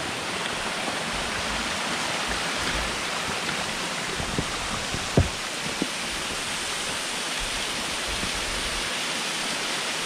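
Steady rush of a waterfall tumbling down a rock face, with a few short knocks around the middle.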